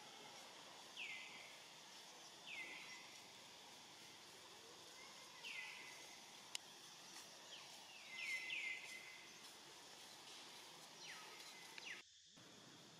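Forest ambience: a steady high insect hiss, with a series of short calls that each drop sharply in pitch, a few of them close together in the middle.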